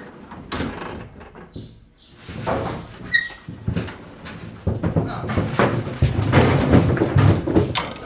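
Steel-barred stall gates clanking, rattling and knocking as they are handled and opened, with a short squeak about three seconds in and a denser run of knocks and scuffling in the second half.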